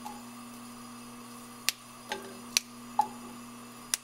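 Asparagus spears being snapped by hand and dropped into a nonstick frying pan: four sharp snaps or taps in the second half, spaced under a second apart, with a few softer knocks, over a steady low hum.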